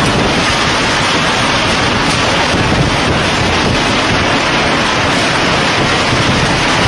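Tornado-force wind buffeting a phone microphone: a loud, steady rush of wind noise with no let-up.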